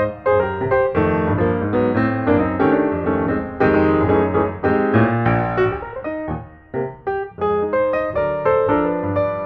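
Background piano music, a quick run of notes.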